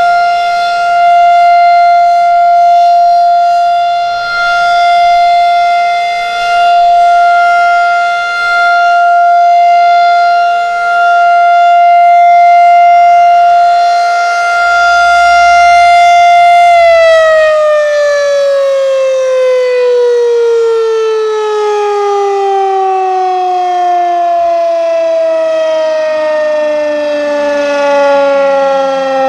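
Federal Signal 2001-DC rotating electromechanical tornado siren sounding its steady alert tone, swelling and fading in loudness every few seconds as it turns. About two-thirds of the way through it shuts off and winds down, its pitch falling slowly and steadily.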